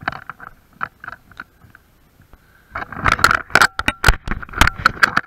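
Clunky knocks and scrapes of something banging against the action camera. Faint scattered clicks at first, then a loud, irregular run of sharp knocks from about three seconds in.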